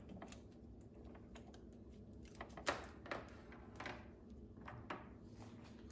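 Light, scattered clicks and knocks of handling as a power cord is pulled out from the machine's cabinet, with two sharper knocks a little under 3 seconds in.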